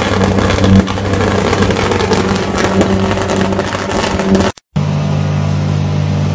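Sustained high-voltage arc at a substation: loud, dense crackling over a steady low electrical buzz. It breaks off about four and a half seconds in and gives way to a different steady low hum.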